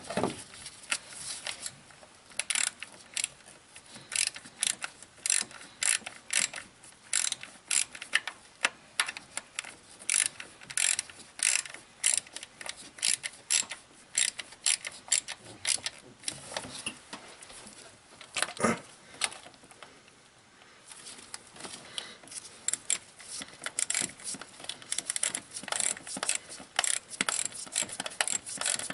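Hand ratchet clicking in quick runs with short pauses, as fasteners on an engine's distributor are worked. About two-thirds of the way through there is one louder knock and a brief lull.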